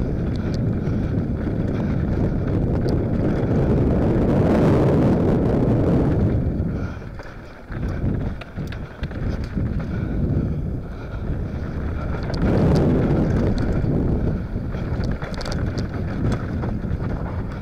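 Mountain bike descending a dirt trail, heard from a helmet-mounted action camera: wind rushing over the microphone with tyres rolling on dirt and light rattles and clicks from the bike. The rush eases off for a few seconds partway through, then builds again.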